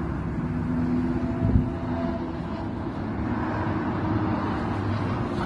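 Steady street traffic noise from passing cars, with a continuous low rumble.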